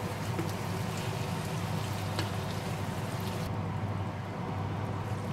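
Ground pork in tomato sauce simmering in a frying pan while a wooden spatula stirs through it, with a few faint ticks, over a steady low hum.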